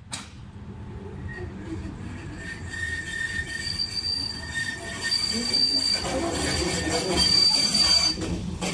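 Tram approaching on its rails, its running rumble growing steadily louder, with high steady squealing tones from the wheels over it.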